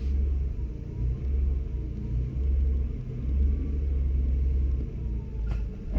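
2006 Ford Explorer's 4.0-litre V6 engine rumbling, swelling and easing in surges as the throttle is worked against the brake to ease the SUV up onto drive-on ramps.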